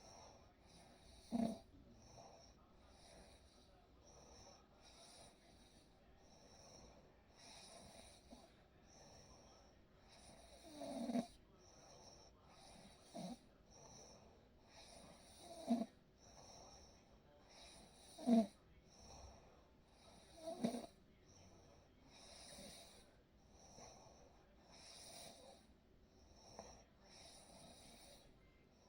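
A person snoring in sleep: about six short, louder snores or snorts at uneven intervals, over faint quiet breathing.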